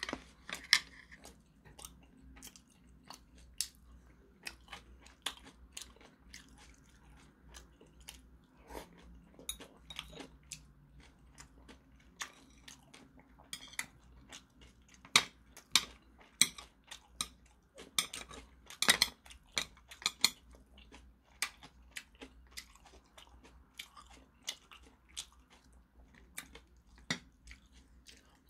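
A man chewing and eating rice and grilled cutlassfish, with many irregular sharp clicks of metal chopsticks and a spoon against the dishes. A faint low hum runs underneath.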